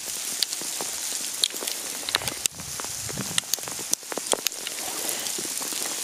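Hail falling: a steady hiss with many sharp clicks of hailstones striking close by.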